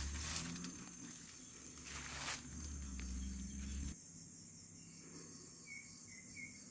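Steady high-pitched insect drone of crickets in tropical undergrowth. During the first four seconds there are a couple of brief rustles and a low rumble of movement, which then drop away, leaving the insects and a few faint short chirps near the end.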